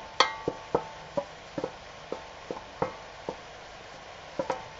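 Wooden spoon knocking and scraping cooked rice out of a stainless steel pot into a frying pan: an irregular run of sharp taps, some with a short metallic ring.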